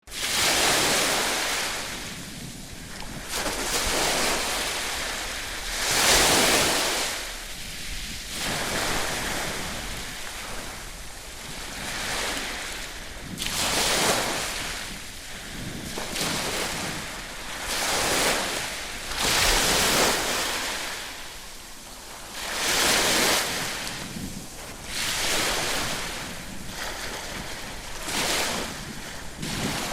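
Surf breaking and washing on the shore in swells that rise and fall every few seconds, with wind on the microphone.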